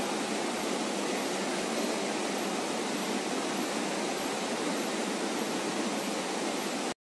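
Foil printing machine running as the wood-grain PET foil web winds over its rollers: a steady, even rushing noise that cuts off suddenly near the end.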